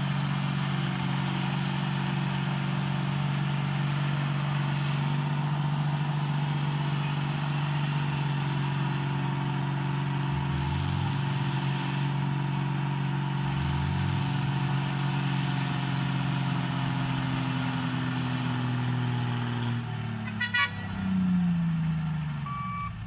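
Heavy truck engines running steadily under load, towing a truck that is stuck in mud. Just after twenty seconds there is a brief rattle, and the engine note changes and falls away.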